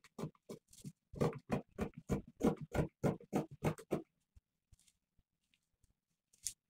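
Scissors snipping through lace fabric in a quick run of short cuts, about four a second, for roughly four seconds. After a pause, one more snip comes near the end.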